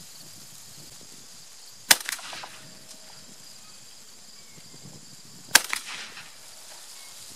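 Two shots from a Fabarm L4S 12-gauge semi-automatic shotgun, about three and a half seconds apart, each followed a fraction of a second later by a fainter crack.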